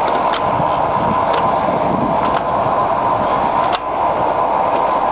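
Pinacho L-1/260 lathe running under power, its geared headstock and engaged lead screw turning with a steady mechanical whir and a faint steady tone. A few light clicks come through it.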